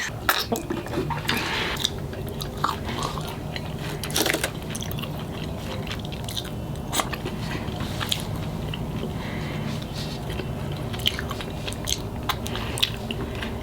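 Close-miked chewing and biting of a California burrito, with scattered wet mouth clicks over a steady low hum.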